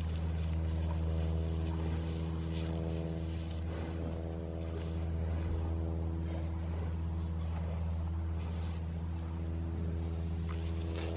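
A steady, low machine hum that holds one even pitch, with a few faint brief crackles over it.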